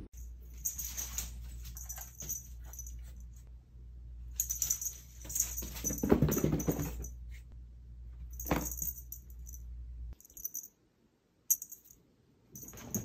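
A small bell jingling in repeated short bursts, as on a moving cat, with a cat's call about six seconds in.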